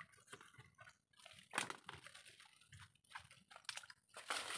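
Faint, irregular splashing and sloshing of shallow water as people wade in a mangrove, with a louder splash about a second and a half in and another near the end.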